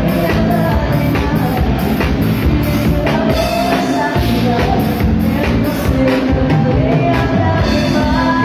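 Live dance band playing amplified music with a man and a woman singing over bass guitar and a steady drum beat.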